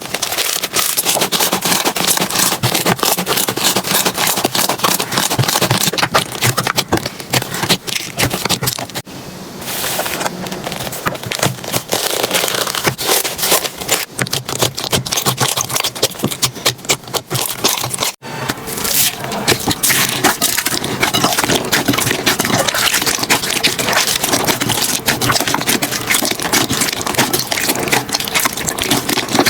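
Slime being squeezed and pressed by hand close to the microphone, giving a dense, continuous stream of crackling and popping clicks, with a brief break about eighteen seconds in.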